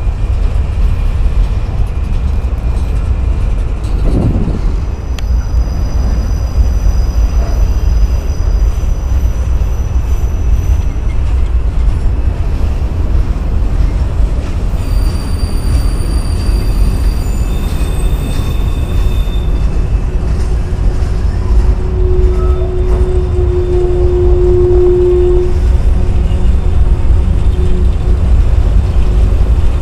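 Freight train of autoracks and boxcars rolling past with a steady heavy rumble of wheels on rail. Thin high wheel squeals come and go through the first half, and a lower squealing tone holds for a few seconds past the middle.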